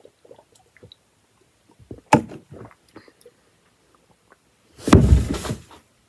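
Faint small noises as a bottle is drunk from, then a sharp knock about two seconds in. About five seconds in comes a loud, heavy thud with a rustle lasting about a second, as the drinker drops out of view.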